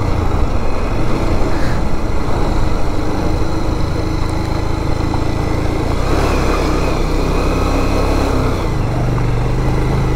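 Bajaj Pulsar 180's single-cylinder engine running as the motorcycle is ridden, under a steady rushing noise. The engine note shifts about six seconds in and again near nine seconds.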